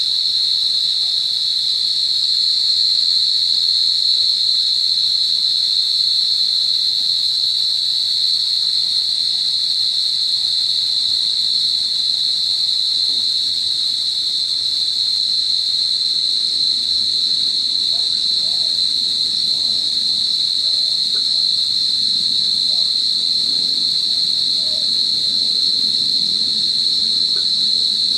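Night insects in dense vegetation giving a loud, steady, high-pitched drone that never pauses.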